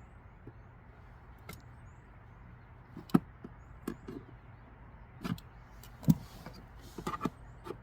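Irregular clicks and knocks of needle-nose pliers working at plastic push-pin trim clips under a car's dashboard, the sharpest about three and six seconds in and a quick cluster near the end.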